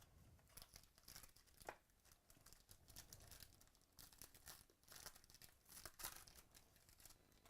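Faint tearing and crinkling of a trading-card box and pack wrapper being torn open by hand, in a run of short, irregular rustles.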